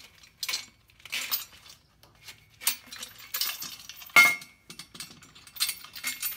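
Trailer wiring in plastic corrugated loom scraping and rattling as it is pulled through a cut galvanized steel trailer tongue, with light metallic clinks. There is one sharp metal clank with a brief ring about four seconds in.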